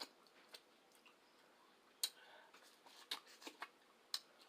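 Close-miked eating: sharp wet mouth clicks and smacks while chewing, about seven spread irregularly, the loudest about two seconds in.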